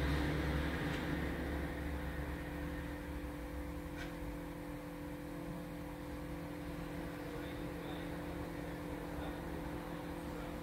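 A passing truck's low rumble fading away over the first couple of seconds, over a steady low hum. There is a faint click about four seconds in.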